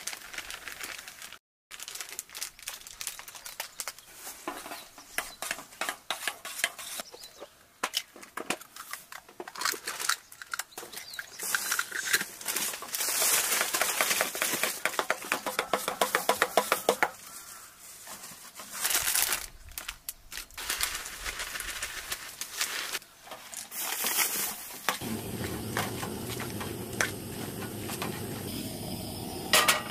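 Flour mix poured from a paper packet into a stainless steel pan of water, then stirred briskly into batter with a metal spoon that scrapes and clicks against the pan in a fast, even rhythm. Near the end a steady hiss takes over.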